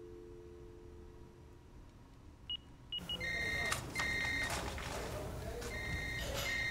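A phone's dial tone, two steady tones together, fades out in the first second and a half. A few short high beeps follow. From about three seconds in, a louder room background comes in with repeated electronic beeps, each about half a second long, and a few sharp clicks.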